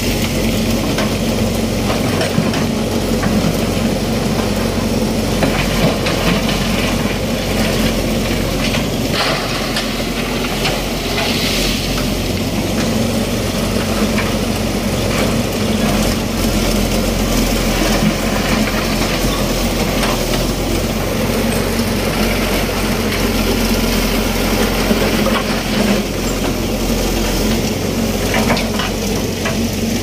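Backhoe engine running steadily at a constant speed.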